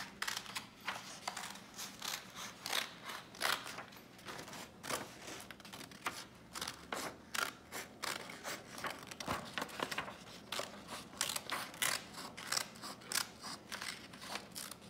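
Small blue-handled scissors snipping through red construction paper, a long run of short snips a few times a second.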